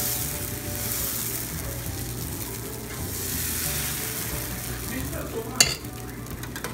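Millet pesarattu batter sizzling on a hot flat pan as a ladle spreads it in circles, with a sharp click a little past halfway through.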